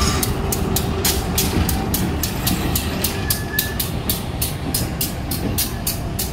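CC 204 diesel-electric locomotive passing close by at shunting speed, its engine a steady low rumble. A sharp high ticking repeats about three times a second throughout.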